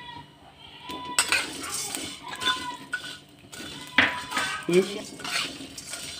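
A metal spatula scraping and clinking against a pan, stirring whole spices as they dry-roast in a little oil, in irregular strokes with occasional ringing clinks.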